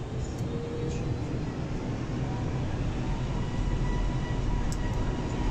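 Steady rumble and hum of a Boeing 747-400's Rolls-Royce RB211 jet engines heard inside the cabin while the aircraft taxis, with a faint steady whine coming in about two seconds in and the low rumble growing a little louder in the second half.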